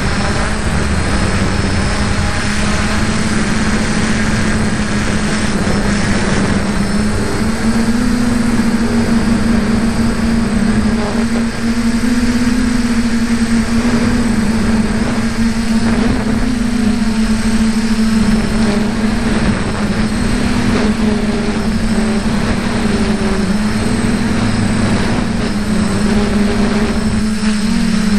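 F450 quadcopter's four electric motors and propellers buzzing steadily in flight, heard close up from on board. The pitch wavers slightly and steps up a little about a third of the way through as the motors change speed.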